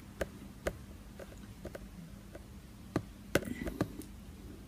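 A handful of faint, sharp clicks and taps at uneven intervals, from the laptop being worked as the document on screen is scrolled.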